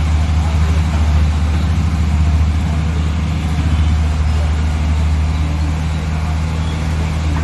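Heavy diesel engine running steadily with a deep, even hum, from the digger or the dump truck at the loading site.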